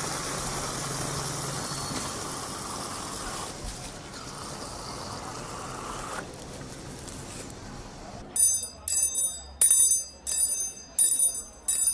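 Steady background noise, then from about eight seconds a fast series of sharp, high, bright ringing strokes, about two a second.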